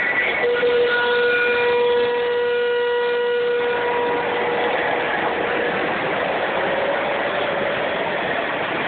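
Horn of a sound-equipped model diesel locomotive blowing one long blast of about four seconds, several steady tones together, then fading out. A steady background noise carries on after it.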